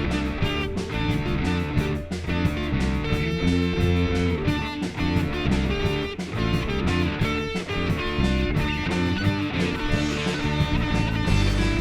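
Punk rock band playing an instrumental passage between verses: electric guitar and bass over a steady drum beat, with no vocals.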